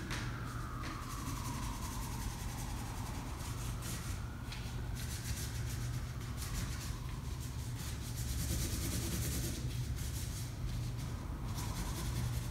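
Felt-tip marker rubbing and scratching on paper as a drawing is coloured in, stroke after stroke, over a steady low hum. A faint tone slides down in pitch over the first few seconds.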